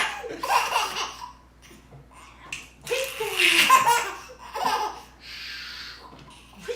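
A baby laughing in bursts of high-pitched belly laughs and giggles, with a breathy hiss a little after five seconds.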